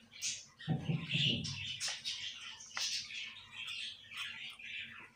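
Birds chirping and twittering throughout, with a few light clicks as a metal spoon presses chana dal filling into a bitter gourd, and a brief low rumble about a second in.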